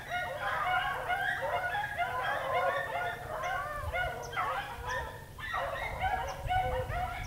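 A pack of beagles baying in full cry on a running rabbit: many voices calling over one another without a break, easing off briefly a little past five seconds in.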